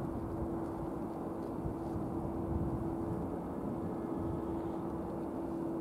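Twin-engine Dassault Falcon 2000 business jet flying overhead on landing approach: a steady low jet rumble with a steady droning tone.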